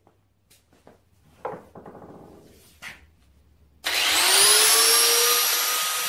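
A few light clicks and knocks, then about four seconds in an electric power tool switches on. Its motor whine rises in pitch as it spins up, then holds steady at full speed.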